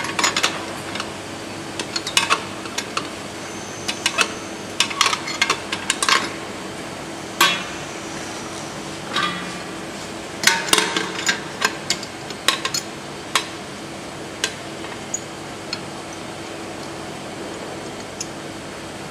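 Metal parts clinking and knocking against the inside of a stainless steel bowl as a metal fitting is worked by hand. The strikes come irregularly, many in the first two thirds and only a few near the end, over a steady machinery hum.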